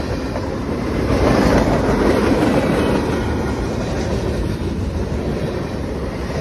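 Freight cars of a CSX manifest train rolling past close by: a steady rumble and clatter of steel wheels on the rails, swelling about a second in.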